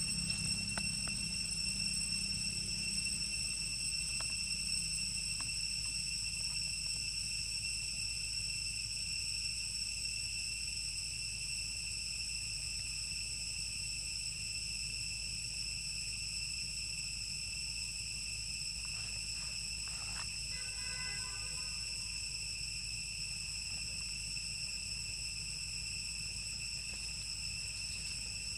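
Steady chorus of insects trilling in several high, unwavering tones over a low steady rumble. A short faint pitched sound breaks in once, about twenty seconds in.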